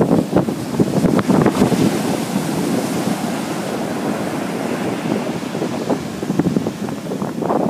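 Heavy ocean surf breaking and washing up a sand beach, its rushing hiss swelling about two seconds in, with wind buffeting the microphone.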